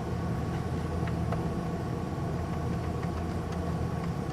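Car engine idling steadily, heard from inside the parked car's cabin, with a few faint clicks.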